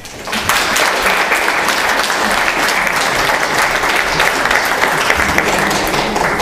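Audience applauding, many hands clapping together. It breaks out suddenly just after the start, as the dance music stops, and holds steady.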